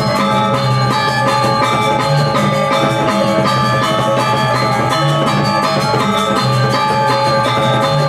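Balinese gamelan gong ensemble playing: fast, dense metallophone notes ringing over deep, sustained gong and low metallophone tones, with drumming.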